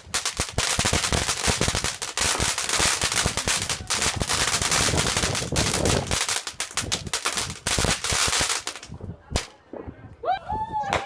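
Fireworks going off in a dense, rapid run of cracks and bangs, like a string of firecrackers, that stops after about eight and a half seconds, followed by one more single bang.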